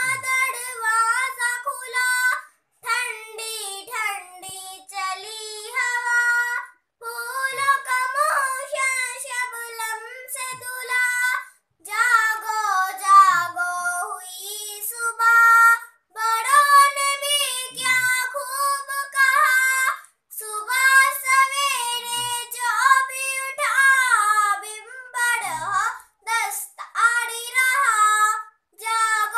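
A young girl singing a naat solo, unaccompanied, in a high voice. Her phrases are broken by short pauses that drop to silence.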